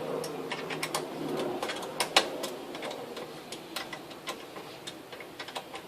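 Scattered light clicks and metallic ticks of a wrench working the bolts of a motorcycle luggage rack, with two sharper clicks about two seconds in.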